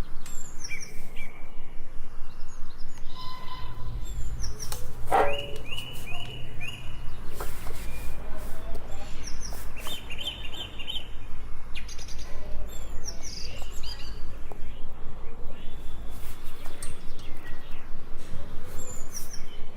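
Small birds chirping and calling, over a fast, even rhythm of short sounds at about five a second and a low steady hum.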